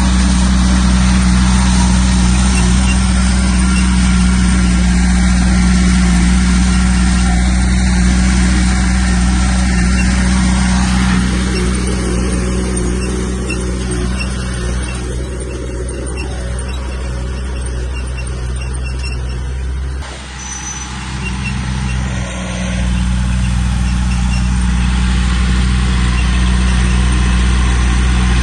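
Heavy diesel engine of earthmoving machinery running steadily. It eases off about eleven seconds in, dips briefly about twenty seconds in, and comes back up to full running.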